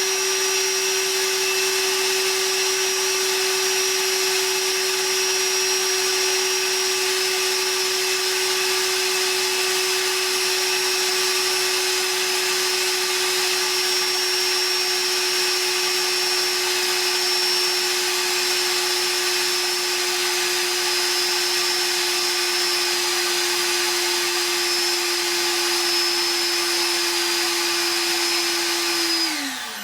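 Ridgid cordless NXT wet/dry vacuum motor running with a steady whine that sags very slightly in pitch as its single 3 Ah battery runs down. Near the end the motor cuts out and winds down in a falling whine: the battery is exhausted, ending the runtime test.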